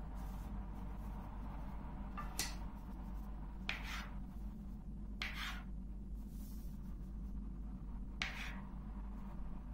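A kitchen knife cutting through twisted dough onto the tabletop: four short, sharp cuts spread across a few seconds, over a steady low hum.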